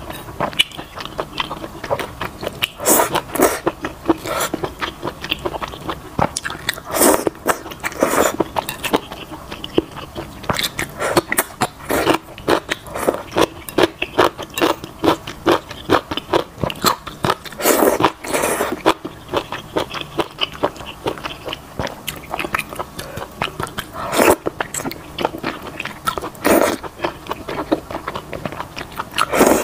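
Close-miked mukbang eating of spicy malatang with wide potato noodles: continuous wet chewing and mouth smacks, with louder bites and slurps of the noodles now and then.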